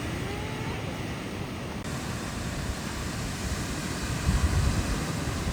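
Ocean surf washing on the shore as a steady wash of noise, with wind buffeting the microphone in low gusts that swell about four seconds in.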